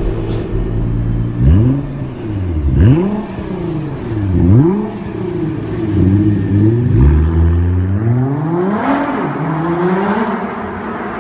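Car engine being revved in sharp blips: three times in the first five seconds the pitch jumps up and falls back. A flurry of quicker small blips follows, then a longer rev that rises and settles back down.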